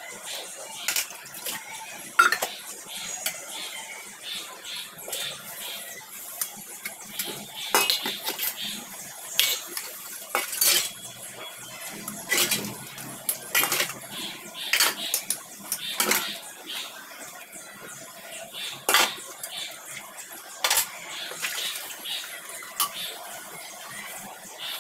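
Stainless-steel dishes and bowls being scrubbed by hand in a steel sink, with irregular sharp clinks and knocks as the pieces strike each other and the sink.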